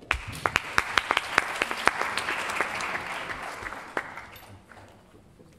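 Audience applauding: a burst of clapping that starts at once, holds for about four seconds and then dies away.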